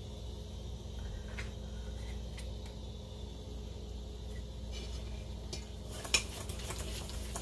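A utensil clinking and scraping against a stainless-steel mixing bowl as pancake batter is stirred. There are a few scattered taps at first, and they come more often near the end. A steady low hum runs underneath.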